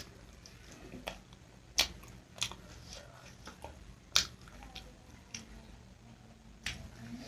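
Close-miked eating: quiet chewing with a few sharp wet mouth clicks, the loudest about two, four and six and a half seconds in.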